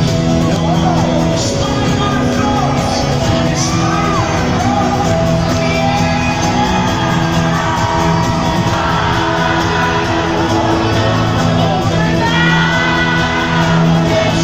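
A live folk-rock band playing amplified acoustic guitars in a large arena, heard from within the crowd, with voices singing and shouting over the music.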